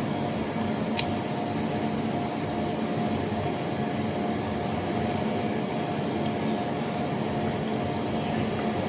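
Steady hum of a small appliance with a faint, constant tone, and a single click about a second in.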